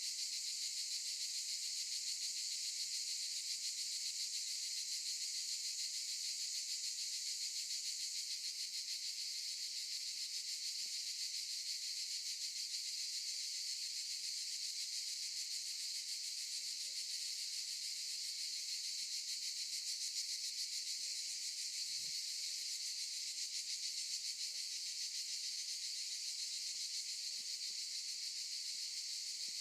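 A chorus of cicadas buzzing steadily, a dense high-pitched drone with a fast, even pulse.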